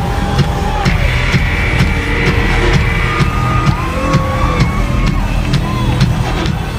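Loud live concert music with a steady electronic dance beat, and the crowd screaming and whooping over it.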